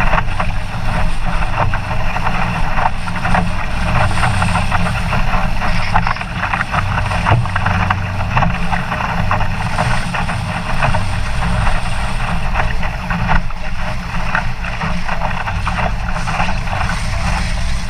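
Strong wind buffeting the microphone over the rush and splash of a Laser dinghy's hull planing through choppy water, with spray hissing off the bow in winds of about 40 knots. A continuous loud mix of low wind rumble and crackling splashes.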